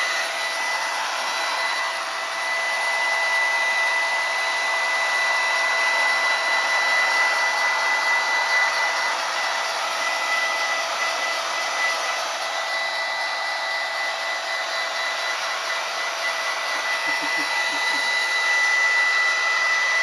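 Hair dryer running steadily on a dog's wet coat, an even rush of blown air with a steady high whine through it.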